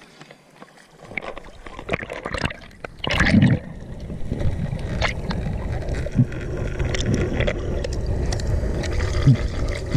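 Water sloshing and gurgling around a freediver's camera as it goes under on a dive, with a loud rush of water about three seconds in. It is then followed by a steady underwater rumble with scattered sharp clicks.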